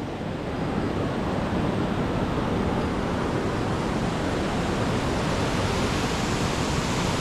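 Rocky jungle stream rushing over boulders and small rapids: a steady, even noise of flowing water.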